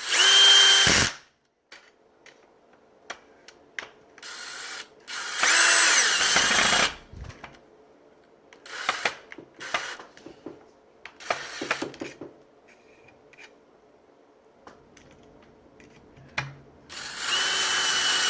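Power drill driving screws back into a reciprocating saw's housing, running in several short bursts of motor whine with pauses between them.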